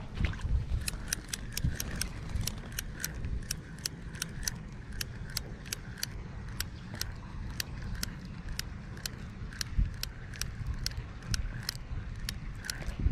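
Spinning reel being cranked to retrieve line, its mechanism ticking about three times a second, starting about a second in. Underneath is a low rumble of wind or handling on the microphone.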